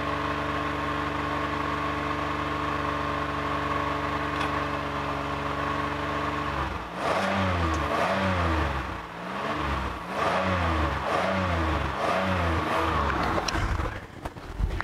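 A car engine held steady at raised speed for about six seconds, then revved up and down over and over, roughly once a second, before dropping off near the end. It is the running car being revved to feed charge to a car that won't start.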